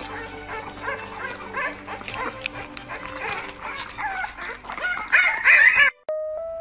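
A puppy making short, high squeaky whimpers over background music, rising to a loud burst of squealing near the end that cuts off suddenly, leaving only music.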